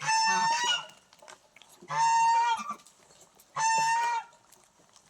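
Poultry calling three times, each call a loud held note of about two-thirds of a second that dips in pitch at its end, with short pauses between.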